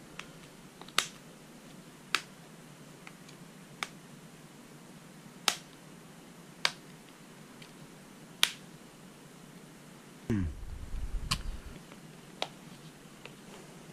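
Plastic back cover of a Samsung Galaxy Tab 3 snapping into place as its edges are pressed, about eight sharp clicks a second or two apart as the cover's clips latch. About ten seconds in there is a low bump and rustle as the tablet is handled.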